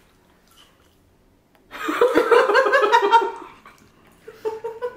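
A woman laughing out loud for about two seconds in quick repeated bursts, then a shorter chuckle near the end.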